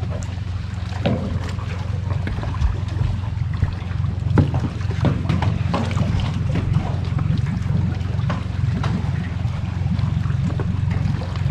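Steady low rumble on the microphone from a small boat on the water, with scattered light knocks and ticks as a trotline is pulled up by hand over the side.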